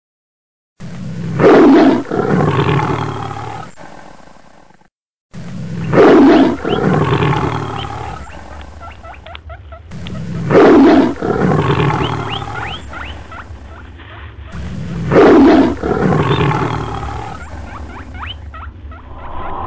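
Tiger roaring four times, evenly about every four and a half seconds; each roar is a loud call that trails off over a couple of seconds.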